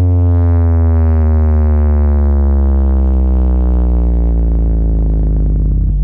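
A low synthesizer tone rich in overtones, gliding slowly down in pitch, played very loud through a carnival sound system's bass-heavy speaker stacks as a sound-check warm-up. It cuts off abruptly at the very end.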